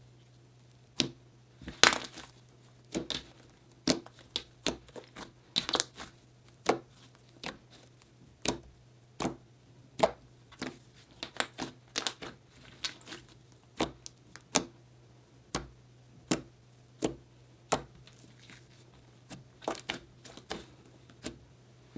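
Hands squishing, folding and poking a very soft slime whose icy texture could not be fully softened, giving irregular short, sharp clicks, one to three a second.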